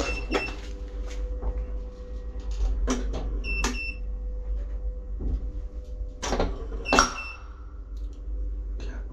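Old elevator clanking and rattling: about six sharp metallic knocks with a short metallic ring, the loudest about seven seconds in, over a steady low hum.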